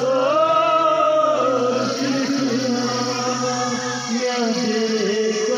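A man's voice singing a chanted lament in long, bending melodic phrases over a steady low tone.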